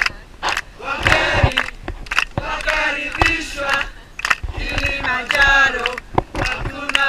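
A group of people singing a song together, men's voices among them, with scattered hand claps.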